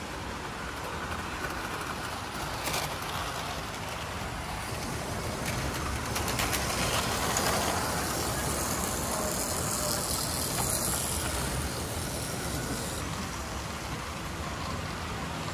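Model trains running on layout track: a steady mechanical running noise of motors and wheels, growing a little louder in the middle.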